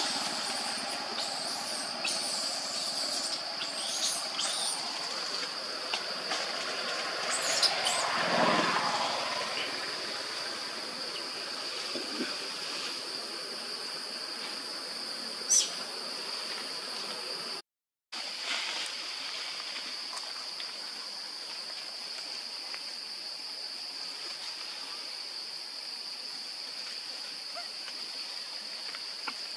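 Forest ambience dominated by a steady high-pitched insect drone, with a louder rustle or call about eight seconds in and a single sharp click a little past halfway. The sound cuts out briefly just after that.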